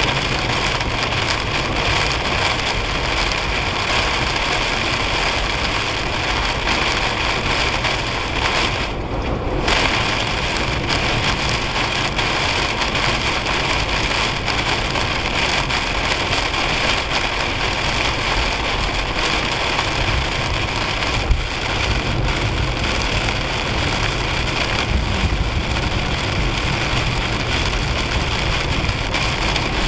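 Heavy rain beating on the windshield and roof of a moving car, over steady tyre noise on a soaked highway. The high rain hiss drops away for about half a second around nine seconds in, and there is a single sharp tick a little past the middle.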